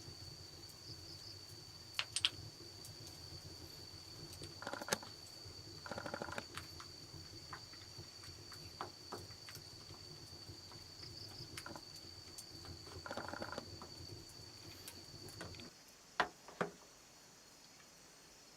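Jungle ambience: a steady high-pitched insect buzz over a low hum, with scattered light clicks and a few short rattling bursts. The ambience cuts off suddenly near the end, followed by two sharp knocks.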